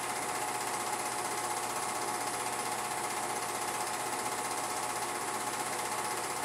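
Film projector running: a fast, even mechanical clatter of the film advancing through the gate, steady with no change.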